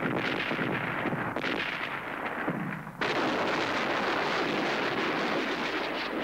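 Battlefield explosions rumbling, then, about three seconds in, a truck-mounted multiple rocket launcher firing a salvo: a sudden, continuous rushing of rockets leaving the launcher.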